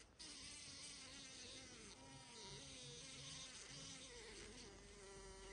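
Faint buzzing of a housefly's wings as it struggles in a small spider's grip, coming in fits with the pitch wavering up and down, then holding one steady pitch near the end.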